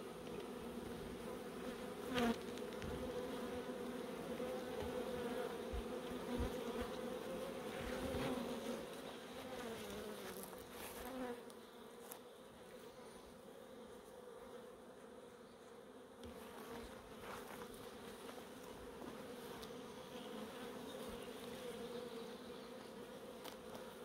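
Honeybees buzzing around an opened hive: a steady hum with single bees passing close and gliding in pitch. There are a few light knocks, the clearest about two seconds in.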